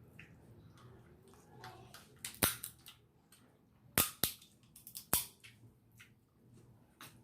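A few sharp cracks and snaps of crab shell being broken open: the loudest come about two and a half, four and five seconds in, with fainter clicks and smacks of eating between them.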